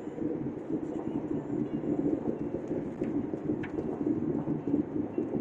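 Steady low rumble of tyres and engine heard inside a car's cabin while driving on a rough, cracked and patched road surface.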